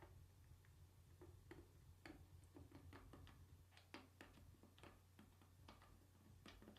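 Faint, irregular light clicks and taps of metal parts and tools being handled while a transmission is taken apart, over a steady low hum.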